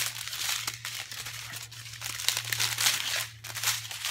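Clear plastic packaging crinkling as small bags of diamond painting drills are picked up and moved over a canvas in its plastic sleeve, in irregular rustles.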